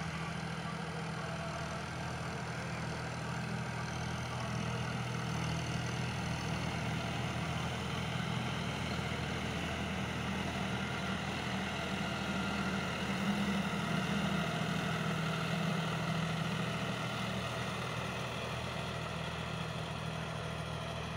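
John Deere 5050D tractor's three-cylinder diesel engine running steadily under load while pulling a rotovator through the soil. It grows louder just past the middle as the tractor passes close.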